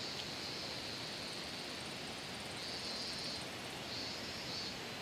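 Outdoor rural ambience: a steady hiss with a high-pitched insect trill that starts and stops a few times.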